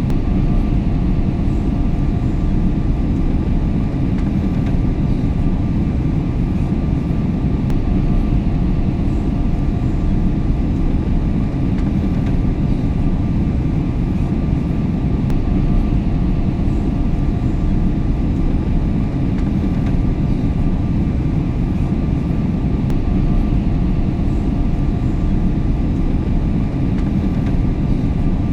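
Airliner cabin noise in cruise flight: a steady low rumble and rush of engines and airflow, with faint steady hums above it.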